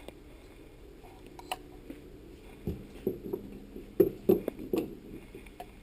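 Scattered clicks and light knocks of small metal parts being handled as the front protective cap is fitted back onto a Sub-Zero refrigerator condenser fan motor, the loudest knocks about four seconds in.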